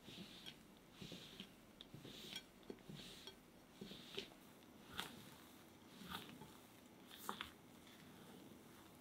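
Spatula folding thick sponge cake batter in a glass bowl: soft, wet swishes as it sweeps through the batter, with several light clicks where it knocks against the glass.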